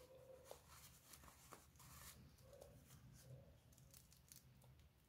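Near silence with faint rustling and scattered light clicks: a metal-link wristwatch being slid off its fabric-covered box cushion and turned over in the hands.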